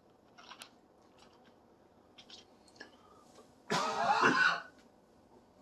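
A person's single loud throat-clearing cough, a little under a second long, about two-thirds of the way in; before it only a few faint clicks.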